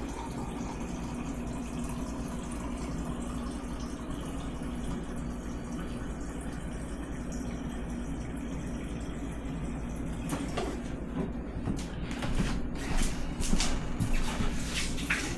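Water from an Amana refrigerator's water dispenser running steadily into a glass with a steady hum, purging air from the freshly reconnected water line. The flow stops about ten seconds in, followed by several clicks and knocks.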